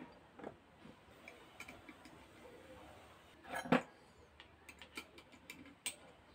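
Light metal clicks and knocks from handling an angle grinder in its metal strap clamp on a wooden board, with one louder knock a little past halfway and a run of faint ticks after it.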